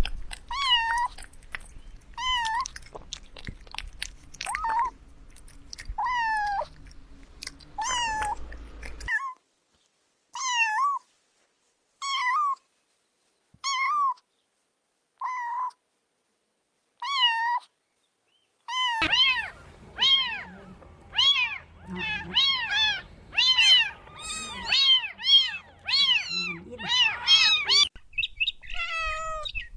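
Kittens meowing, high-pitched and repeated about once a second; from about 19 s in, several kittens meow over one another in quick succession.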